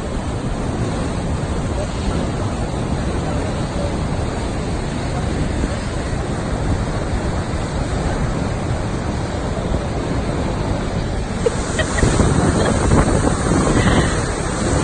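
Fast, churning river water rushing steadily below, with wind on the microphone. The noise grows louder and brighter for a couple of seconds near the end.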